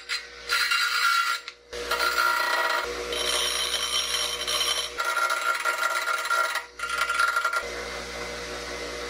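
Bench grinder running while a thin metal rod, spun in a cordless drill, is ground against the wheel in several bursts of grinding with a high ringing whine, broken by short pauses. The grinding stops about three quarters of the way through, leaving the grinder's steady hum.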